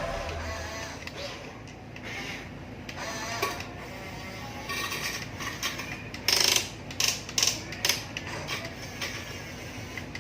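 Small electric motors and plastic gearboxes of a radio-controlled construction toy whirring, in a string of short bursts in the second half.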